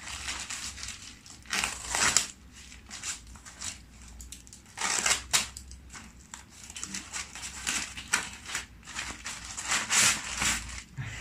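Packaging being handled and opened by hand, crinkling and rustling in irregular bursts, the loudest about two, five and ten seconds in.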